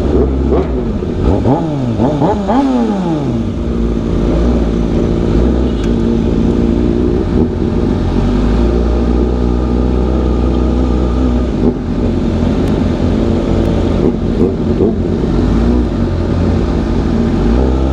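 Motorcycle engine revving up and dropping back several times in the first few seconds, then running at a steady pitch while under way.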